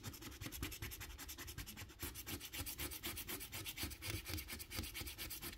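Metal scratcher tool scraping the latex coating off a scratch-off lottery ticket in rapid, even back-and-forth strokes.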